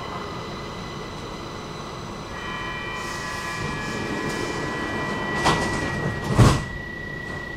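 Stockholm metro train running, with a steady rumble and a high steady whine that gains extra tones a couple of seconds in. Two heavy knocks about a second apart near the end; the second is the louder.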